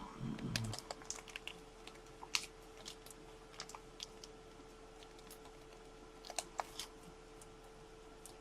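Scattered light clicks and taps in short clusters over a faint steady hum, with a soft low thud at the start.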